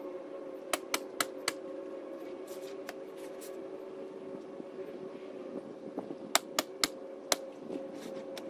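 Ridgid pneumatic coil roofing nailer driving roofing nails into shingles: a quick run of four sharp shots about a second in, four more around six to seven seconds, and one more near the end. A steady hum runs underneath.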